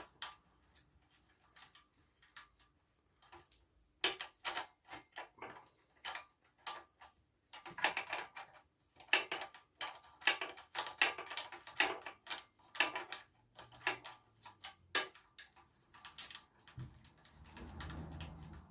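Irregular metal clicks and knocks of hand tools working at the rusty seat-clamp nut of a Raleigh Chopper, with one louder clack about 16 seconds in. A low hum starts near the end.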